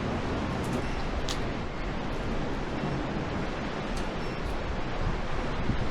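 Steady rushing noise of ocean surf breaking on the shore, mixed with wind.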